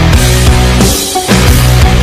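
Loud heavy rock music, dense and driving, with a brief dip in loudness about halfway through.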